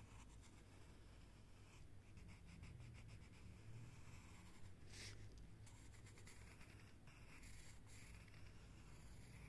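Faint scratching of a pencil drawn over notebook paper as it traces petal outlines, over a steady low hum.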